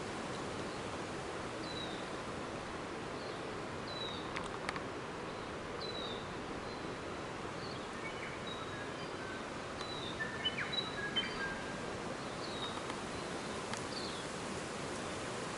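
Steady hiss of forest background noise with small birds calling over it: short high chirps falling in pitch, repeated every second or so, and a few brief whistles in the middle. A couple of sharp clicks come a little after four seconds in.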